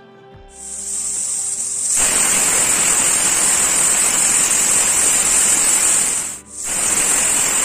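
Pressure cooker whistling: steam jets out past the lifted whistle weight in a loud, shrill hiss. It builds about half a second in and is at full force from about two seconds in, breaks off for a moment near the end, then starts again. The whistle signals that the cooker has reached full pressure; here it counts toward the two whistles that cook the biryani rice.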